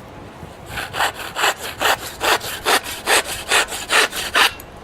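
Hand saw cutting across a small wooden shutter slat blank: quick, even back-and-forth strokes, about five a second, starting about a second in and stopping near the end.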